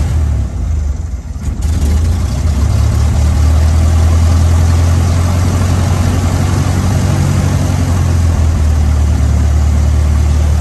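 Carbureted piston engine of a single-engine light aircraft, heard from inside the cockpit during a flooded-engine start with the mixture at idle cutoff and the throttle full in. It drops briefly about a second in, then runs with a steady, loud, low drone.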